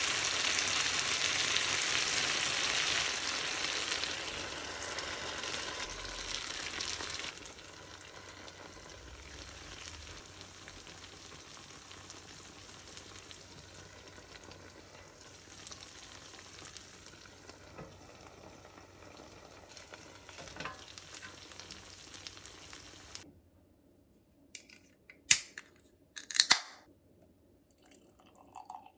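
Food sizzling in a frying pan of sauced fried pork under shredded cheese, loud for the first several seconds, then quieter and steady. Near the end it gives way to quiet with a few sharp clicks.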